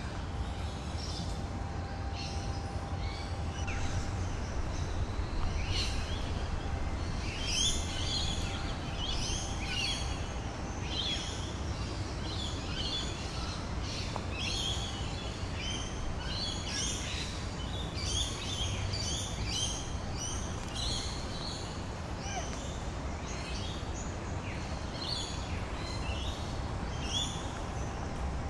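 Many small birds chirping and calling in quick, overlapping bursts, growing busy a few seconds in, over a steady low background rumble.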